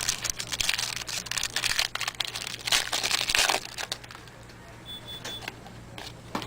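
Trading cards and a foil pack wrapper being handled: irregular crinkling and rustling with small clicks, dying down to quieter handling about four seconds in.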